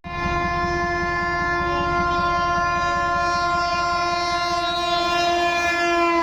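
Indian Railways locomotive horn sounding one long continuous blast over the rumble of a passing train, its pitch starting to drop right at the end as the train goes by.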